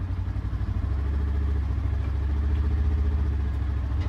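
A vehicle engine running at low revs with a steady low drone, rising a little in level about a second in.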